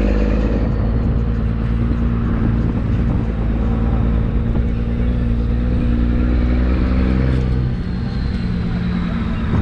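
1996 Cummins 5.9 12-valve inline-six diesel, running on waste motor oil, running loudly under load while pulling a trailer. Its pitch shifts lower, with a slight dip in level, about eight seconds in.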